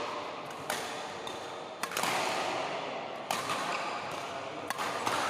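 Water sloshing and rubbing as a muddy toy is washed by hand in a basin, with a few sharp plastic taps.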